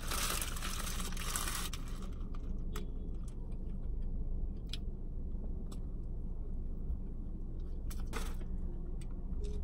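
Steady low rumble of a parked car with its engine idling, heard from inside the cabin. A rustle covers the first two seconds, and scattered small clicks and taps follow.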